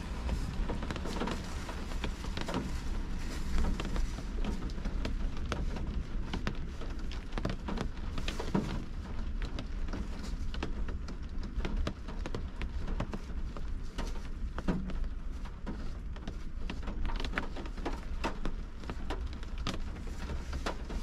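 Rain falling on a car's windshield and roof, heard from inside the car: many irregular drop taps over a steady low rumble.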